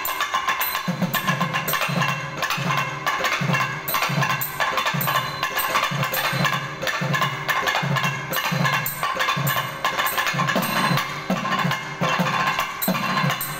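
Two tavil drums playing a rhythmic passage on their own: sharp stick strokes on the treble head with deep strokes on the bass head about twice a second, over a steady drone.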